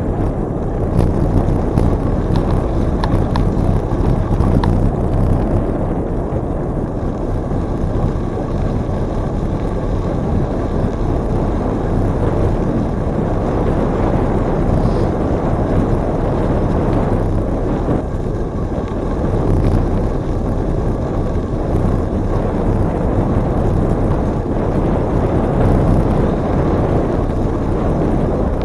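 Steady wind rumble on the microphone of a camera riding on a moving bicycle, a loud, low, fluctuating rush with no break.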